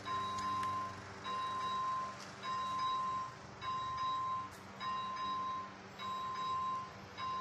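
ZV-01 electronic level-crossing bell sounding its warning: a repeating electronic tone, each about half a second long, a little under once a second. It means the crossing is activated and a train is approaching.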